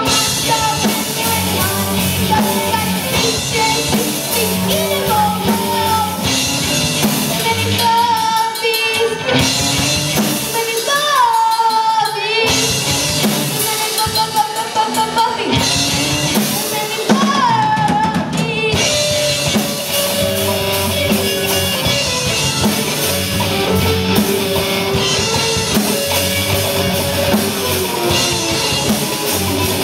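Young rock band playing live: a boy sings into a microphone over a drum kit and electric guitar.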